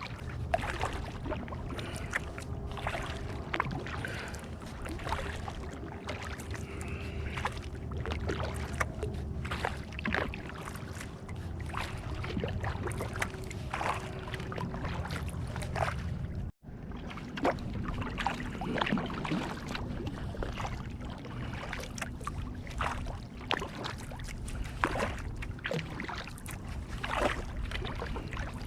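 Kayak paddling: paddle blades dipping and dripping water in irregular small splashes, over a steady low rumble. The sound cuts out for an instant about two-thirds of the way through.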